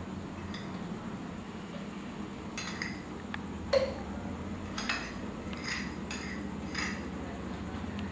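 Metal spoon clinking against a small plate and a pan as butter is scooped into the pan: about six light clinks spread over several seconds, over a steady low hum.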